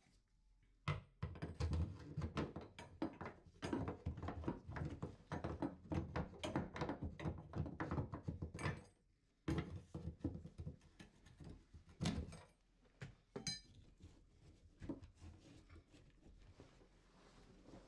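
Copper tub-spout pipe with a soldered elbow knocking and scraping against the tile edge and wall framing as it is worked through the hole toward the shower valve: a dense run of clunks and rubs, then a few separate knocks.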